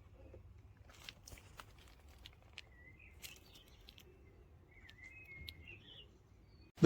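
Faint background: a low steady hum with scattered light clicks and taps, and a few short, faint chirps of birds, the clearest about three seconds in and again around five seconds.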